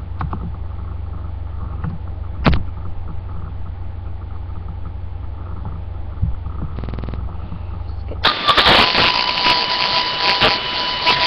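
A steady low hum, with a faint click about two and a half seconds in. About eight seconds in, loud music starts suddenly and drowns the hum: the backing track for the song she is about to sing.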